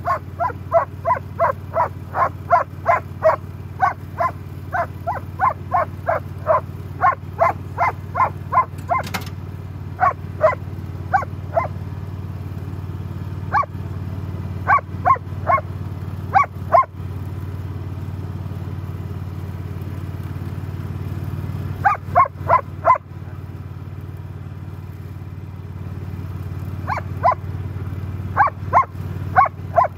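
German Shepherd barking over and over: about two barks a second for the first nine seconds, then short runs of three or four barks. Underneath is the steady low running of the riding mower's single-cylinder petrol engine.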